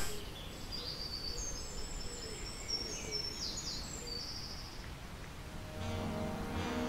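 Small birds chirping in short, high notes over a quiet background hiss for the first few seconds; music comes back in near the end.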